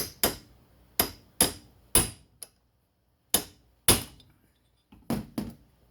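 Hammer blows on a chisel set against the scored inner race of a chainsaw crankshaft bearing, struck to crack the race off. There are about ten sharp metallic strikes, mostly in quick pairs, each with a short ring.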